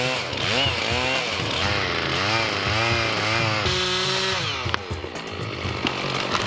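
Gas chainsaw revved up and down over and over, its pitch rising and falling about twice a second. It is held steady briefly, then drops and runs rougher near the end.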